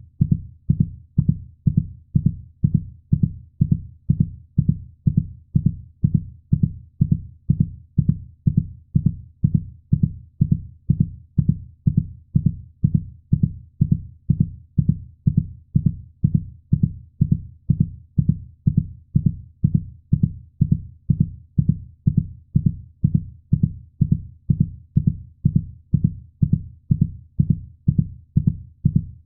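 Heartbeat sound: a steady, even rhythm of low, muffled thumps that repeats without change.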